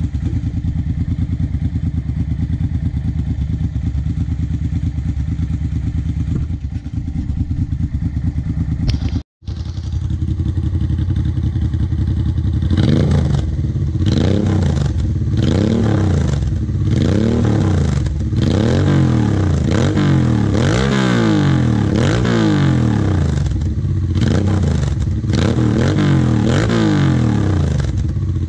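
1990 Honda Hawk GT 650's V-twin engine running through a baffle-less, straight-piped Delkevic slip-on exhaust, idling steadily at first. After a brief cut about nine seconds in, it is revved by hand in a dozen or so quick throttle blips, each a rise and fall in pitch, one after another.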